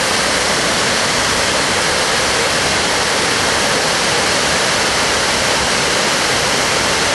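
Middle Oneonta Falls pouring: a loud, steady rush of falling water.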